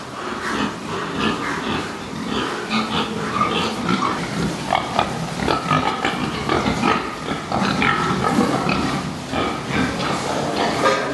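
Domestic pigs in a pen grunting, with many short calls overlapping one another over a steady background hiss.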